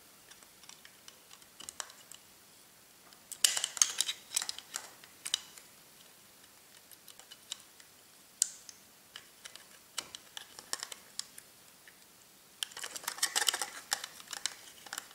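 Thin flat metal tool prying at the snap clips of a plastic thermostatic radiator valve housing. Scattered light plastic clicks and scraping, with two spells of rapid clicking and rattling, one about three and a half seconds in and one near the end.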